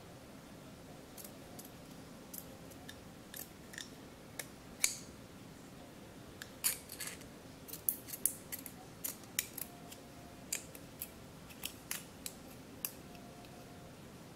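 Scissors snipping through a plastic drinking straw, cutting it lengthwise: a series of short, sharp clicks, scattered at first and coming thicker from about halfway through.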